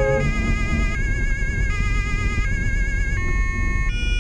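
German police two-tone siren (Martinshorn) heard from inside the car, alternating between two pitches about every three-quarters of a second, over steady road and engine rumble. A lower steady tone cuts off just after the start.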